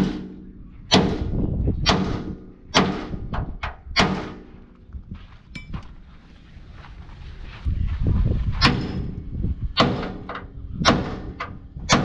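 Sledgehammer blows on the steel of an Isuzu truck chassis frame, about one strike a second, with a pause of a few seconds midway.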